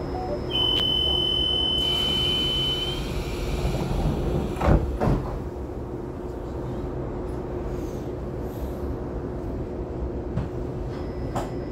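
Inside a stopped train carriage: a steady hum, a single high beep lasting about two and a half seconds near the start, then two heavy thumps about five seconds in, the sliding doors shutting before departure.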